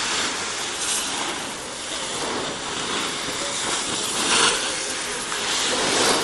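Wind rushing over the microphone, a steady noise that swells in a few stronger gusts.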